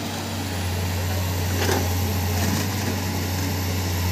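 Hydraulic excavator's diesel engine running steadily under working load as the boom reaches out and the bucket digs, growing slightly louder about a second in.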